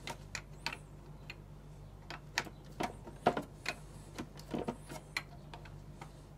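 Irregular light clicks and taps of a 17 mm wrench working on a water purifier's plastic filter fitting as it is loosened in short turns, with a few louder clacks about two and a half, three and a half and four and a half seconds in.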